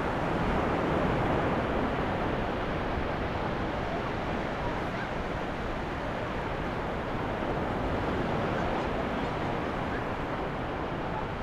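Ocean surf washing onto a beach: a steady rushing of breaking waves that swells slightly about a second in and again near the end.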